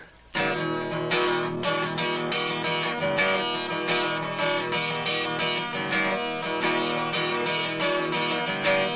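Acoustic guitar strummed in a steady rhythm, starting abruptly about half a second in: the instrumental intro of a song.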